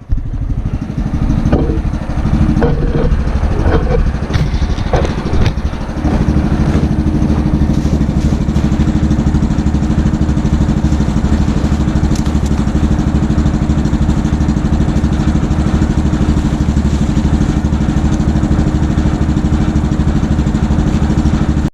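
Kohler gas engine of a portable bandsaw mill running steadily, with a few knocks in the first several seconds. About six seconds in, its note steadies and grows stronger, then holds.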